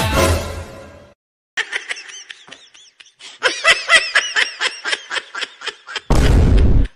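Music fades out within the first second. After a short pause comes high-pitched laughter in quick, repeated bursts lasting about four and a half seconds. It is cut off near the end by a loud, short noise burst.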